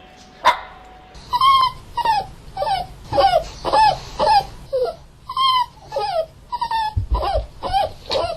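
A dog giving a run of short, high-pitched yelping whimpers, about two a second, each falling in pitch. A sharp click sounds just before they begin.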